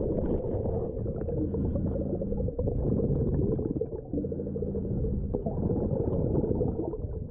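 Creek water heard through a submerged camera: a muffled, dense low rush of the current, with a faint steady low hum that comes and goes and scattered small clicks.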